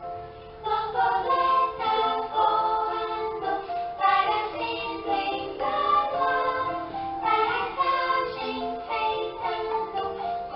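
Voices singing together in a children's song with instrumental accompaniment, starting up about half a second in.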